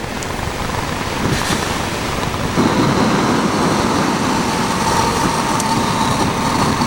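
Steady rushing hiss of a camping gas flame heating water for tea. It gets louder about two and a half seconds in, and a thin steady tone sets in at the same point.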